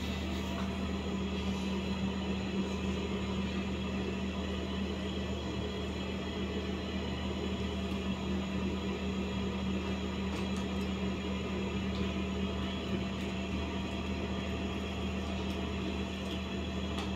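Steady low machine hum with faint steady tones above it, unchanging throughout, and a few faint clicks.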